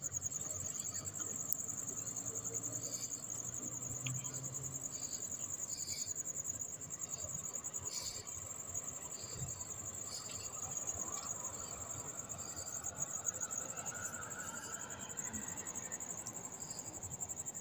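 An insect trilling steadily on a high, rapidly pulsing note, with a few faint clicks from parts being handled on an engine cylinder head.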